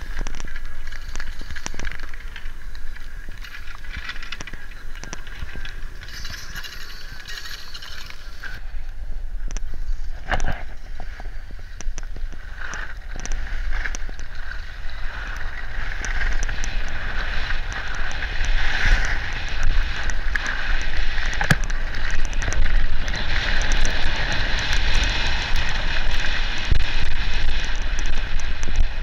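Snow hissing and scraping under a rider sliding fast down a groomed ski slope, with wind buffeting the microphone and small knocks as the snow gets rougher. It grows louder in the second half.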